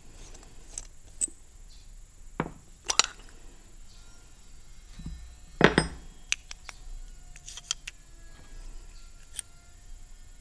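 Scattered sharp clicks and clinks of small metal carburetor parts being handled on a workbench as a Predator 420 cc engine's carburetor is taken apart: the brass float bowl comes off and the plastic float is lifted out. The loudest knock comes a little past halfway.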